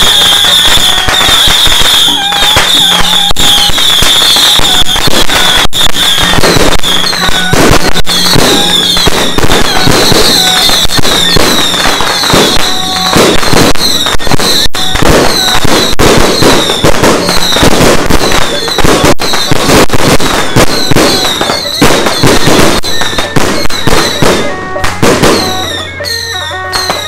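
Strings of firecrackers crackling continuously and very loudly in a dense rapid stream, mixed with firework bangs. A high-pitched whistling runs over the top. The crackle thins out briefly near the end.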